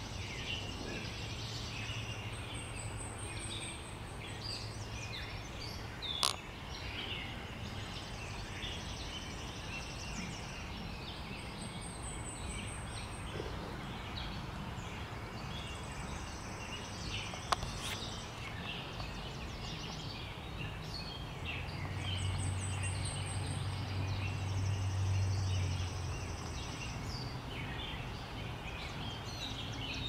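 Woodland birdsong: many small birds chirping and singing in the background, with a high, thin trill that comes three times, a low distant hum at times and two sharp clicks.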